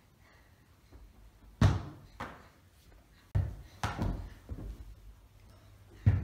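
A football thudding indoors during a goalkeeper-glove catching test. There are three heavy thuds a couple of seconds apart and several lighter knocks and bounces between them.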